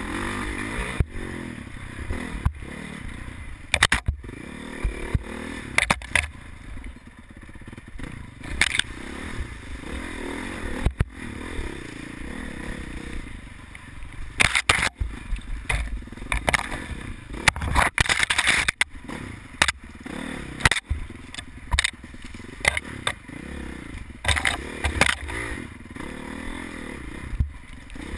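Off-road dirt bike engine revving up and down as it rides rough single track, with frequent sharp knocks and scrapes from the bike hitting rocks and brush.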